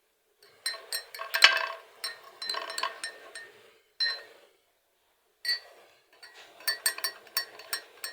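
Spoon clinking against a glass cup, in several clusters of quick ringing taps with short pauses between.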